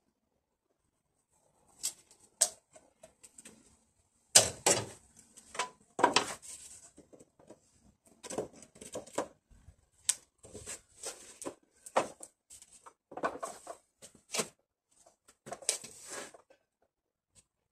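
Timber boards being handled and worked on a saw stand: irregular wooden knocks and taps with scraping and rustling between them, starting about two seconds in.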